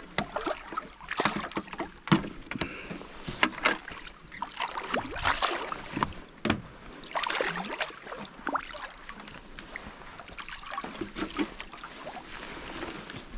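Water splashing irregularly as a hooked Israeli carp thrashes at the surface and is scooped into a landing net.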